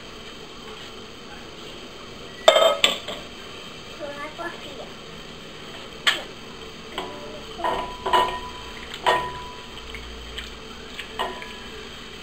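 Spoon knocking and clinking against a glass bowl while gelatin powder is stirred into hot water to dissolve it, the bowl ringing briefly after several strikes. About two and a half seconds in comes a louder clatter, the aluminium pot being set down on the stone counter.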